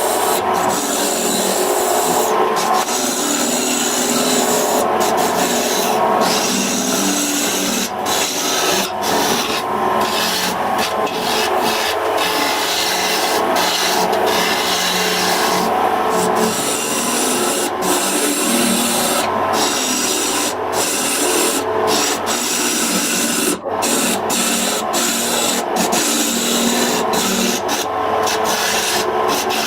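Wood being worked with a power tool: continuous abrasive rubbing and scraping on wood over a faint steady motor tone, with many brief breaks.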